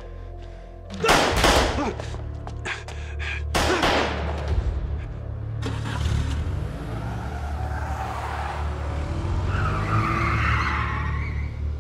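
Action-film soundtrack: two loud bangs about two and a half seconds apart, then car tyres squealing in a skid near the end, over a steady music score.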